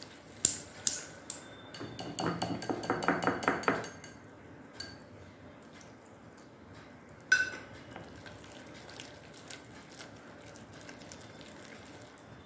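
Wire whisk beating thick gram-flour batter in a glass bowl: a few clinks, then a quick run of rapid rhythmic strokes rattling against the glass about two seconds in, and one sharp clink a few seconds later.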